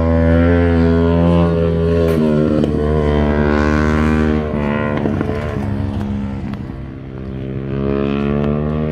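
Motorcycle engine held at high, steady revs as it laps the track, easing off around the middle and pulling up again near the end.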